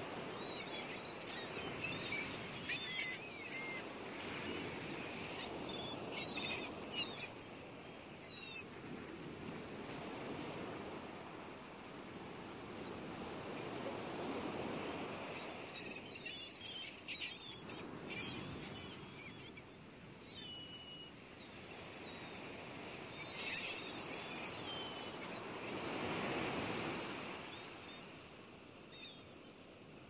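Nature soundscape: a rushing surf-like noise swelling and fading every few seconds, with birds chirping throughout.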